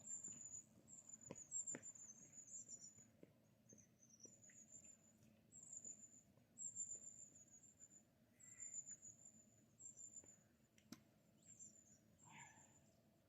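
Faint high-pitched insect chirping in short repeated runs over near-silent riverside quiet, with a few light clicks.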